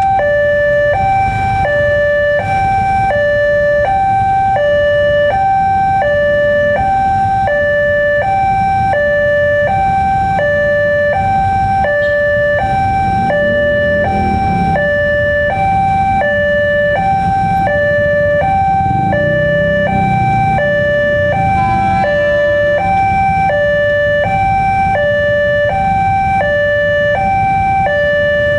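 Electronic warning alarm of a railway level crossing sounding without a break, switching evenly between a higher and a lower tone about every half second, the signal that a train is approaching. Road traffic rumbles underneath.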